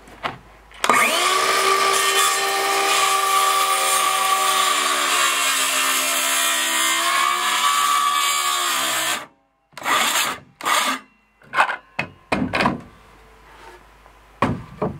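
DeWalt 20V MAX cordless circular saw spinning up and cutting through a 1-inch-thick board, its pitch sagging and wavering a little as the blade works through the wood. It stops abruptly about nine seconds in, and a few short knocks and clatters follow.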